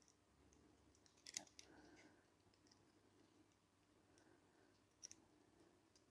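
Faint, sparse clicks of metal tweezers touching the brass plates and wheels of an Ansonia kitchen clock's movement as wheel pivots are fitted. There is a small cluster of clicks about a second and a half in and a double click about five seconds in, with near silence between.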